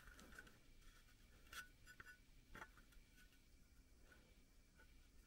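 Near silence, with faint rubbing and a few light taps, about one and a half, two and two and a half seconds in, as hands handle an air cleaner base with an intake air temperature sensor pushed through a rubber grommet in it.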